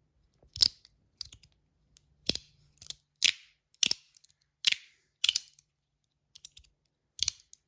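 An Antisign Berserk S Nano fidget being snapped back and forth by hand, making sharp clicks about one every half second to a second.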